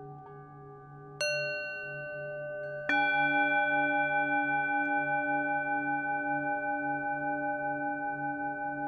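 Singing bowls tuned to D, struck twice, about a second in and again, louder, just before three seconds in. Each keeps ringing with a slow, pulsing waver over the fading ring of earlier strikes.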